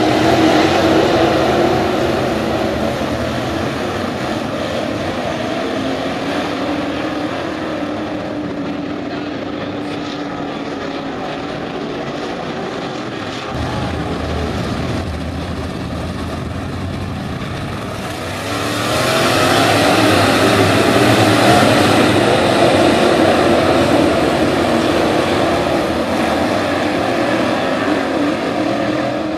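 A field of IMCA Modified dirt-track race cars with V8 engines running around the oval, a blend of droning engines rising and falling in pitch. The sound grows louder about two-thirds of the way through as the pack comes closer.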